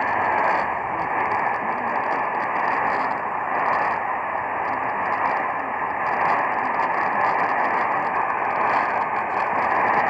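Steady hiss of AM radio static from a Sangean portable radio's speaker tuned to 1510 AM, with no programme audible through the noise.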